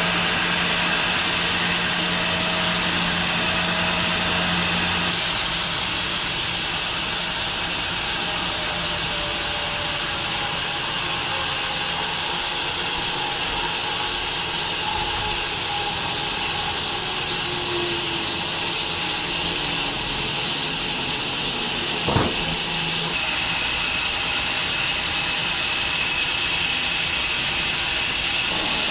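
Home-built wide bandsaw mill running, its blade cutting through a log: a steady, loud, hissing machine noise. The tone shifts suddenly twice, and there is one sharp knock a little past the middle.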